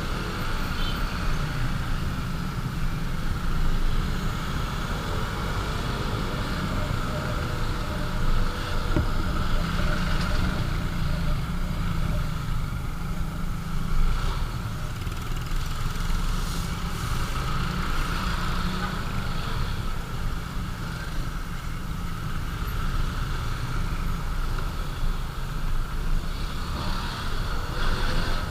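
Steady road noise from a moving motorcycle: wind buffeting on the microphone over the running engine, with small swells every few seconds.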